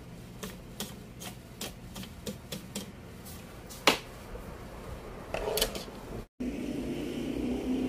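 Hand screwdriver and small screws clicking against the metal and plastic of an LED TV's T-con board cover as the cover screws are taken out: a run of small sharp clicks, about two or three a second, with one louder clack near four seconds in. After an abrupt break about six seconds in, a steady low hum takes over.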